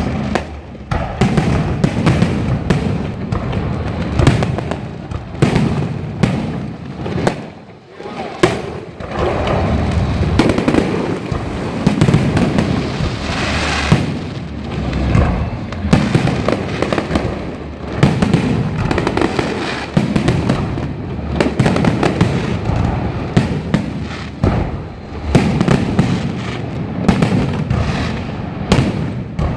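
Fireworks and firecrackers going off in a dense, continuous string of bangs and crackles, with a brief lull about eight seconds in: a firecracker salute to a passing temple procession.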